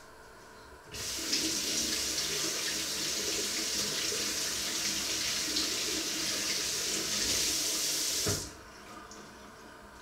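Kitchen tap turned on and running into the sink for about seven seconds: it starts abruptly about a second in and is shut off near the end.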